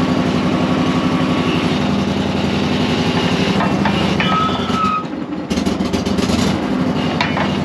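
Bobcat skid steer engine running steadily, with a brief drop in level about five seconds in.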